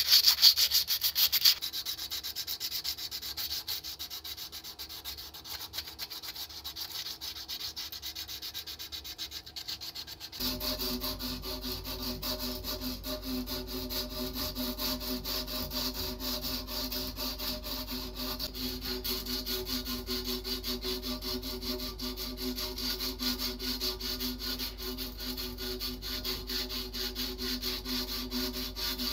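Sandpaper rubbed by hand back and forth over a small metal part, loudest in the first second or so. About ten seconds in, it changes to a flat hand file stroking across the metal frame of a Buntline revolver held in a vise: a steady run of filing strokes.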